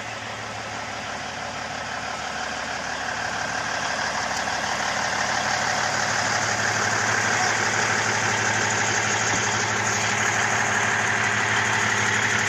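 Semi truck's diesel engine idling steadily, growing louder over the first several seconds and then holding even.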